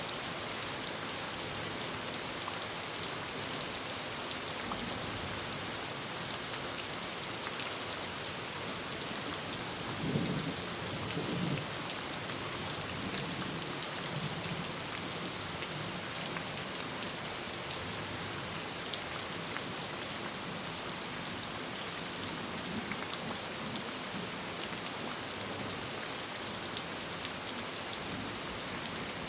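Heavy rain drumming steadily on a tin roof, with sharp drop hits scattered through it. A short low rumble of thunder comes about ten seconds in.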